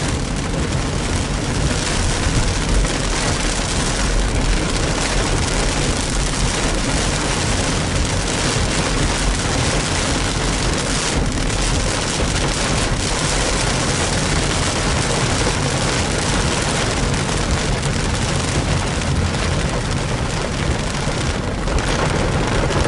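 Heavy rain falling on a car's roof and windshield, heard from inside the moving car: a loud, steady rush with no let-up.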